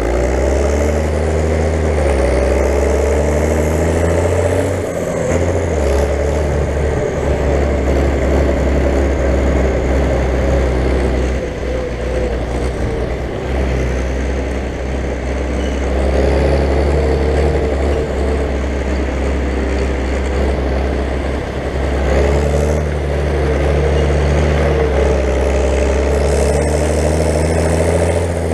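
David Brown 1694 tractor's turbocharged four-cylinder diesel engine running steadily while driving, its note wavering slightly up and down with the throttle.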